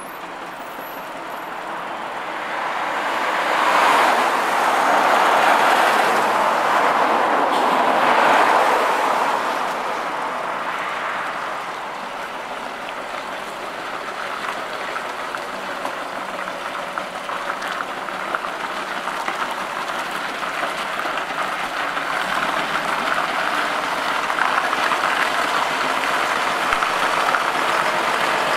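Volvo F88 lorry's diesel engine and tyres on a wet road as it drives with a loaded low-loader trailer, getting louder towards the end as it comes closer. A louder swell of noise comes about four to nine seconds in.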